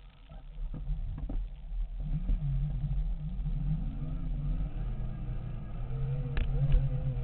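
Segway x2's electric drive pulling away from a standstill across grass: a whine whose pitch rises and wavers with speed over a low rumble that grows steadily louder, with two sharp knocks near the end as it jolts over the ground.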